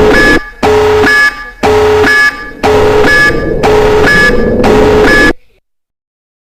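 Loud, distorted electronic alarm tone of a mock emergency alert warning of a nuclear attack, sounding in repeated buzzing pulses with short gaps between them. It cuts off suddenly about five seconds in, leaving silence.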